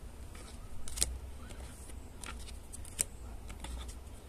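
Trading cards being handled and laid one at a time onto a stack while they are counted: a few short, soft clicks of card on card, about a second apart, over a low steady hum.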